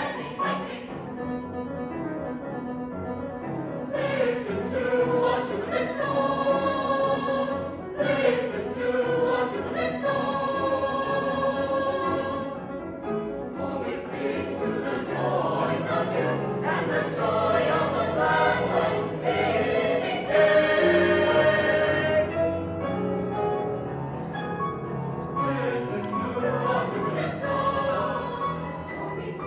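Mixed-voice high school choir singing sustained chords in parts, swelling louder from about four seconds in and loudest a little past the middle.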